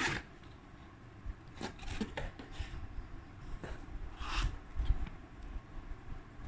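Packaging and products being handled: a series of short rustling and scraping sounds, the longest a little after four seconds in.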